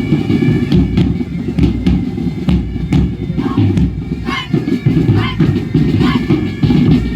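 Loud music with regular percussive strikes, heavy in the bass.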